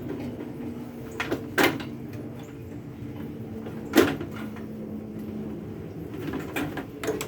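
Sharp clicks and knocks of wire connectors being pulled off terminals inside a microwave oven's sheet-metal cabinet, the loudest about a second and a half in and again at four seconds, over a steady low hum.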